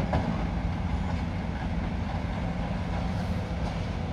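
Diesel engines of demolition excavators running steadily: a low rumble with a constant hum and a few faint knocks.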